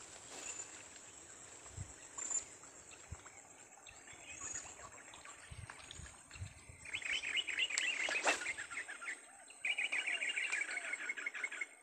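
A bird calling in two rapid trills of quick repeated notes in the second half, the second one steadier and about two seconds long. Faint knocks come before them.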